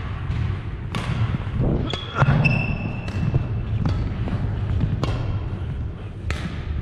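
Badminton rally on a hardwood gym floor: a run of sharp racket strikes on the shuttlecock and players' footfalls, with brief high sneaker squeaks about two and a half seconds in.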